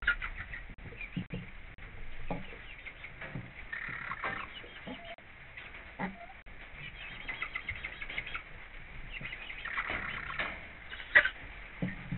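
Hens in a coop clucking softly, with scattered taps and scratches as they peck and move about on the litter, and one sharp knock late on.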